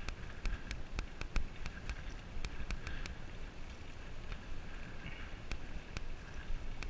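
Wind rumbling over a GoPro camera carried by a moving cyclist, with irregular sharp clicks and rattles several times a second.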